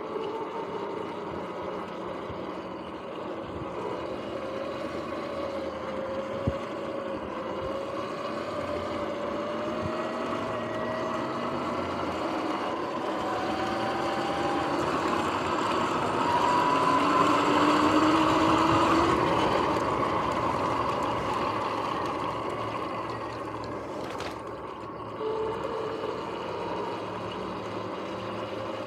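Sur-Ron X electric dirt bike under way: a motor and drivetrain whine over wind and tyre rush. The whine rises in pitch as the bike speeds up and is loudest a little past the middle. Its bearings are noisy.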